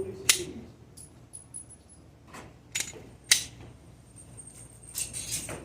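Scattered sharp clicks and knocks, about half a dozen, with the loudest about three and a half seconds in and a small cluster near the end.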